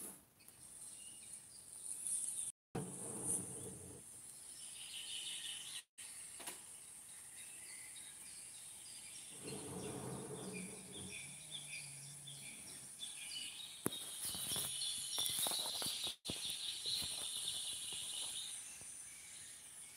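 Faint outdoor ambience: birds chirping and a steady high insect-like hiss, with a couple of brief low rumbles. The audio cuts out completely for an instant three times.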